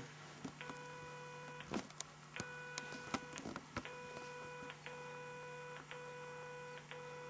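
Faint electronic beep tones from a handheld electronic device, each held about a second with short breaks, repeating about six times. A few sharp clicks between them sound like buttons being pressed.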